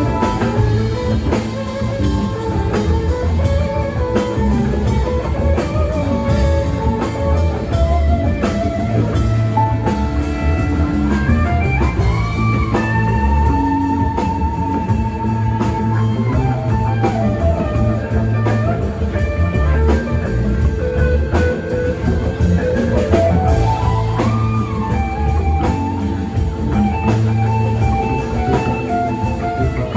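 A rock band playing live: an electric guitar plays a lead line with bent notes over bass and a drum kit.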